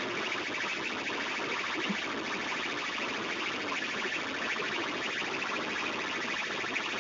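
DJ sound system played at very high volume, heard as a harsh, steady buzzing roar that overloads the phone's microphone, with no clear beat.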